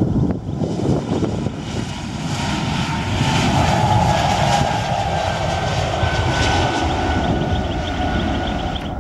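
Airplane engines passing: the noise swells about two seconds in, holds, then eases off toward the end, with a faint tone sliding slowly down in pitch. Wind rumbles on the microphone underneath.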